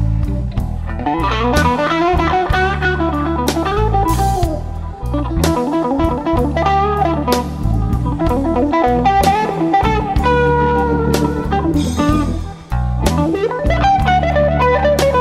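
Blues music with electric guitar over bass and drum kit.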